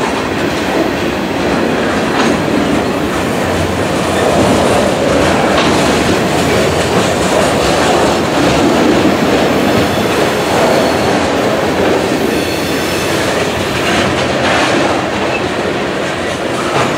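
Freight train cars (tank cars and covered hoppers) rolling past close by: a steady, loud rumble of steel wheels on rail, with a few clacks of wheels going over the track.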